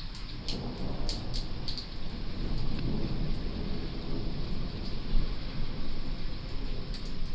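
Thunder rumbling in a rainstorm, the low rumble swelling about half a second in and rolling on over steady rain, with a few sharp taps of drops.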